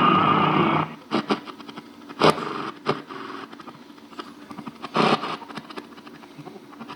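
AM radio playing through a cheap turntable unit's built-in speaker with poor reception: a loud stretch of sound at the start, then mostly faint static broken by crackles and a few short loud bursts.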